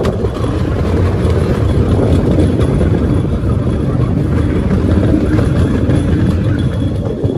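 A motor vehicle running steadily, a continuous low engine drone and rumble.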